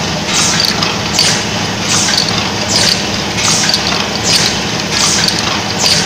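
Automatic tube filling and sealing machine running: a steady motor hum under short hisses of its pneumatic system, one about every three-quarters of a second as the turret steps from station to station.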